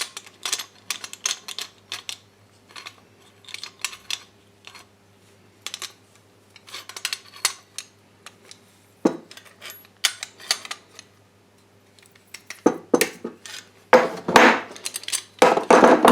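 Spanner and pliers clicking and clinking on a brass compression fitting as its nut is tightened onto copper pipe, in irregular taps with a denser clatter near the end.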